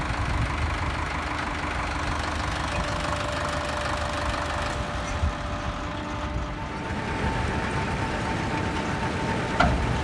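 Diesel tractor engine idling steadily, with a faint steady whine for a few seconds in the middle.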